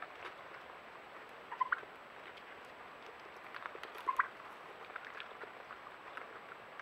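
Wild turkeys calling: two short calls, about two and a half seconds apart, each sweeping quickly upward, with faint scattered ticks between.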